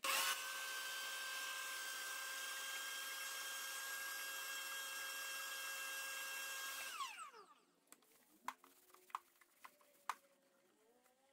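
A vacuum cleaner's motor switched on, running with a steady high whine for about seven seconds, then switched off and spinning down with falling pitch. A few light clicks follow near the end.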